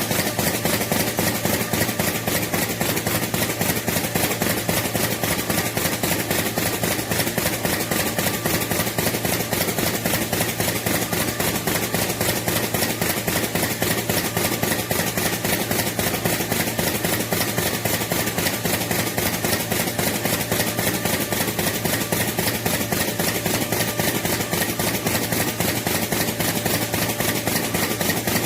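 Automatic magnet-applying machine for booklets and flyers running steadily, with a fast, even mechanical clatter over a steady hum.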